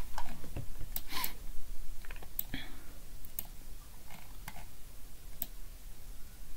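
A dozen or so scattered, irregular clicks and taps from working a computer while a document is paged through, the loudest about a second in.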